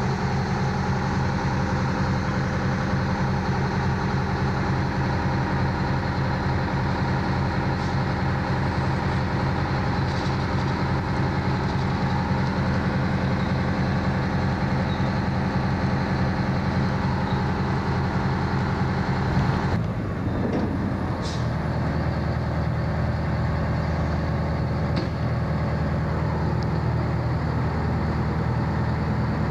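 Fire engine idling with a steady low engine hum. About two-thirds of the way through, the sound breaks off and the engine resumes on a slightly lower note.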